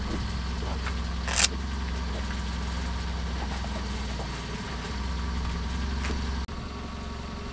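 A boat's engine idling with a steady low hum, ahead of raising the anchor. A single sharp click about a second and a half in, and the hum drops a little, abruptly, near the end.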